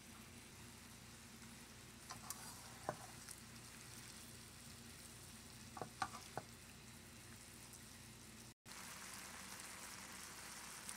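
Steak, shrimp, peppers and onions frying faintly in a pan with marinade just poured over them, with a few light clicks about two and six seconds in. After a short break near the end, a pan of beans bubbling at a simmer.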